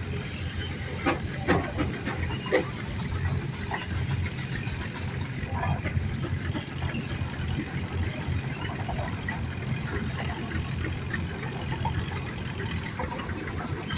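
Steam engines running with a steady low rumble, with a few sharp knocks in the first three seconds.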